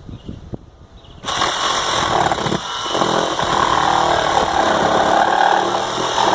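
A few light knocks, then about a second in a power tool's motor starts abruptly and runs loudly and steadily.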